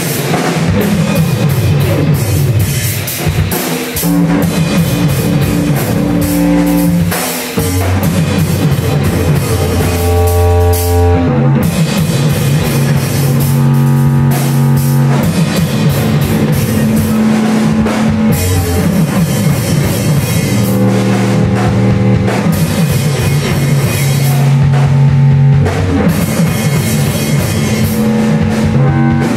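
A band playing live and loud: a pounding drum kit with guitar over low, held notes that change pitch every second or two.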